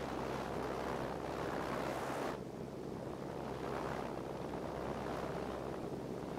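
Airplane cabin noise: a steady engine drone with rushing air and wind on the microphone. The upper hiss drops away suddenly about two seconds in, while the low drone carries on.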